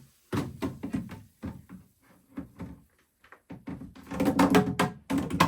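A string of irregular knocks and clunks, as of hard objects being handled and set down, with the loudest cluster about four seconds in.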